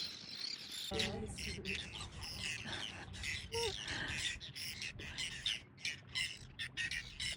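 Wild birds chirping and squawking in many short, repeated calls over a steady low rumble.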